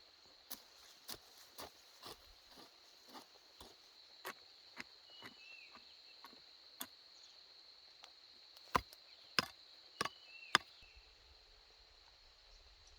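A hand tool chopping: a run of lighter strikes about two a second, then four louder strikes near the end. A steady high insect drone runs underneath.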